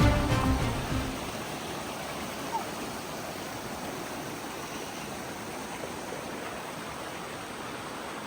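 Background music ending about a second in, then creek water running steadily. A single brief chirp comes about two and a half seconds in.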